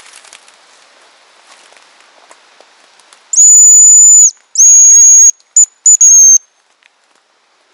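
Hazel grouse decoy whistle blown close by: two long, high, thin whistles, then a few short notes and a last one that falls away, imitating the hazel grouse's song to call the bird in. Faint rustling of leaf litter comes before it.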